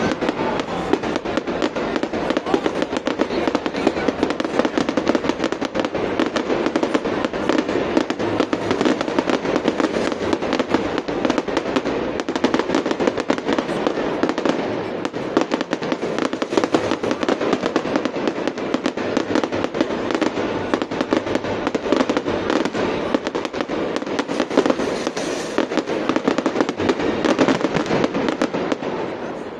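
Fireworks display: a dense, continuous barrage of bangs and crackling, easing off near the end.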